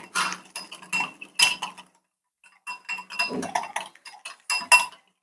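Wire whisk beating a thick egg, spice and flour marinade in a glass mixing bowl, its wires clinking rapidly against the glass, which rings with each hit. Two spells of whisking with a short pause about two seconds in.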